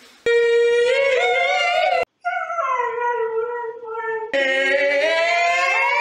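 Siberian husky howling: three long howls, the first rising slightly in pitch, the second gliding down, the third rising again, the first two cut off abruptly.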